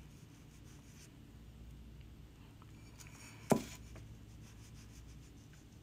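Faint scratching and dabbing of a small flat paintbrush working glaze onto the edge of a ceramic palette; the glaze dries chalky as soon as it touches the piece. A single sharp tap about three and a half seconds in.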